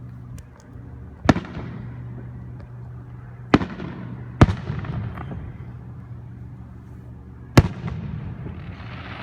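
Distant aerial fireworks bursting: four sharp bangs, two of them close together in the middle, each trailing off in a rolling echo, over a steady low hum.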